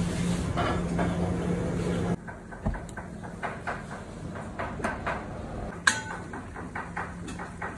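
A steady low kitchen hum for about two seconds, then it cuts off. Red mullet pieces then fry in butter in a pan on a gas burner, with irregular crackling and popping and one sharp clink about six seconds in.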